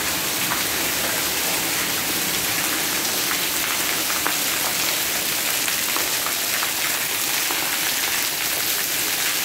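Heavy rain pouring onto tiled paving and a garden: a steady, dense hiss of drops splashing on the tiles, with scattered individual drop ticks.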